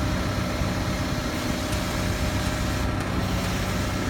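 Truck engine running steadily with the PTO engaged, driving the hydraulic pump of a Fassi F50 loader crane.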